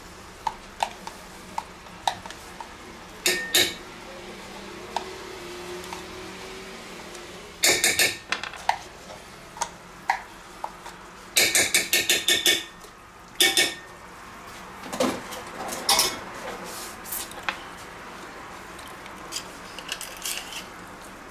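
Red spatula scraping and knocking against plastic crème fraîche cups and a stainless steel mixing bowl, in several quick bursts of sharp clicks. In the last few seconds the spatula stirs grated cheese and crème fraîche in the steel bowl, with softer scraping.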